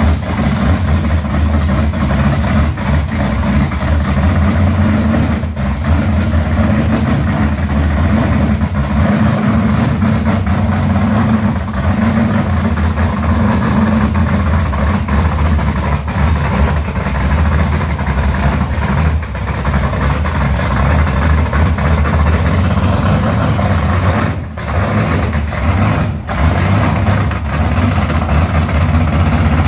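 Chevrolet LS376/525 6.2-litre V8 crate engine in a restomodded 1965 Impala idling steadily, with two brief dips in level near the end.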